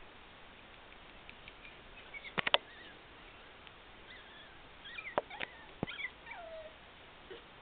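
High, faint squeaks and whimpers from 4½-week-old Papillon puppies, with one drawn-out whine falling in pitch near the end. Sharp clicks come in a cluster of three about two and a half seconds in, and three more between five and six seconds in.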